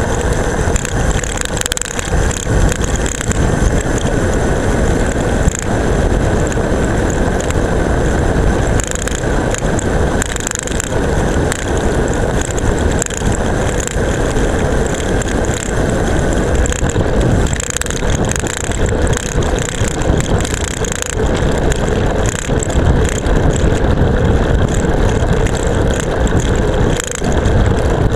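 Seatpost-mounted camera rattling hard on a bicycle during a fast downhill run, over a steady loud rush of wind and tyre noise on asphalt.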